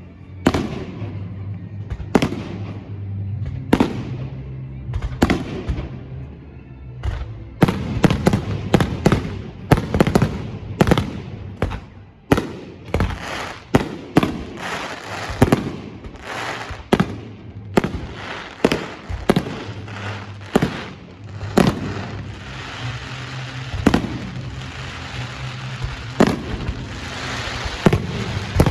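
Fireworks display: aerial shells bursting with sharp bangs, a few at first and then a rapid, dense volley from about seven seconds in. Near the end a long spell of crackling comes from crackle-effect stars.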